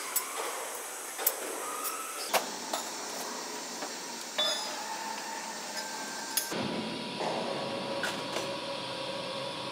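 Scattered metallic clicks and knocks from hands and a tool working on the knife shaft of a metal slitting machine, over a steady factory hum. About six and a half seconds in, a fuller, lower machine hum sets in.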